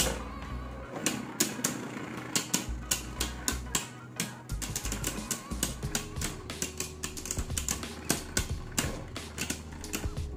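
Beyblade Burst spinning tops clashing in a plastic stadium: a rapid, irregular run of sharp clacks as the tops hit each other and the stadium wall, over background music.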